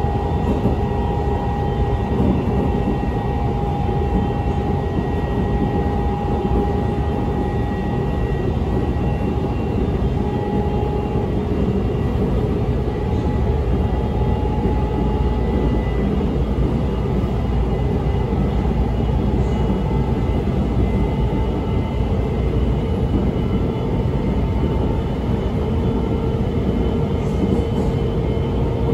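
Interior of a Guangzhou Metro Line 22 train running at speed between stations: a steady heavy rumble of wheels on rail with rushing noise, and faint steady whining tones from the traction drive over it.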